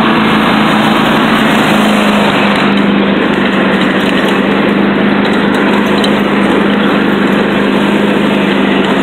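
John Deere 100 Series riding lawn mower engine running steadily as the mower is driven across grass, its hum dropping slightly in pitch about two seconds in.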